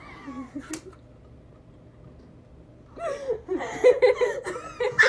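Girls laughing and giggling, with a short lull, then bursting into sustained laughter about three seconds in.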